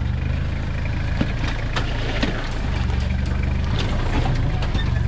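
Off-road 4x4's engine running low and steady, with scattered sharp clicks and knocks over it; the engine hum drops back for a moment about a second in.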